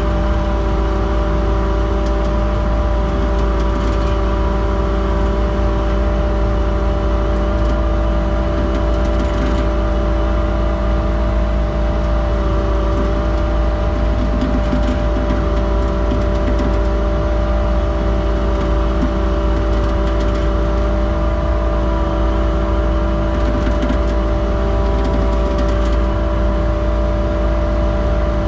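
Skid steer engine running steadily at a constant throttle, driving its hydraulic winch attachment as it pulls the stuck box truck; an even, unchanging machine hum with no revving.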